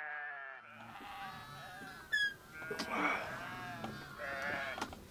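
Young livestock bleating several short times, with a brief high squeak about two seconds in.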